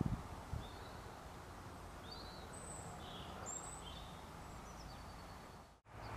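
Several short, high bird chirps over a steady low outdoor rumble. The sound cuts off abruptly near the end.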